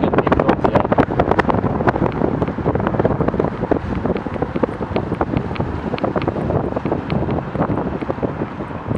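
Wind buffeting the camera's microphone as it moves along a road: a loud, steady rush with constant crackling.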